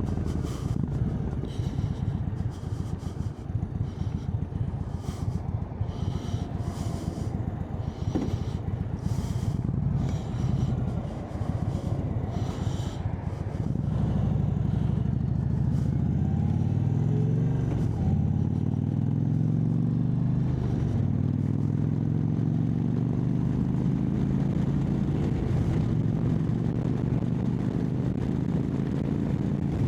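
Indian Chieftain Dark Horse's V-twin engine through a Freedom Performance aftermarket exhaust, riding along, its exhaust gasket freshly replaced so the leak is sealed. For the first half it runs at a low, uneven rumble with gusts of wind noise. From about halfway the pitch climbs again and again as the bike accelerates through the gears.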